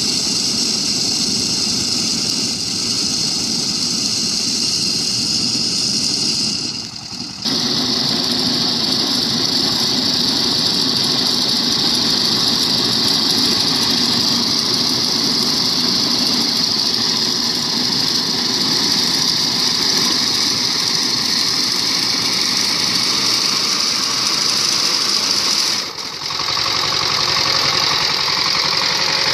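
Walk-behind power tiller's engine running steadily as it drives a front-mounted reaper cutting paddy, the sound dipping briefly twice.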